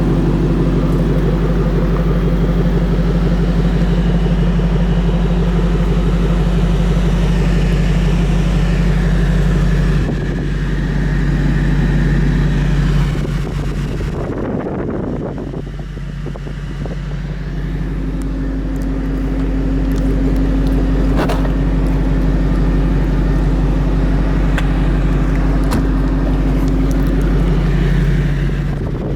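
A 2014 Ford Mustang Shelby GT500's supercharged 5.8-litre V8 running steadily at idle, with a few seconds in the middle where the sound drops and turns noisier before the steady running returns.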